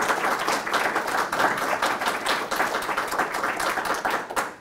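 Audience applauding, many hands clapping at once; the clapping dies away near the end.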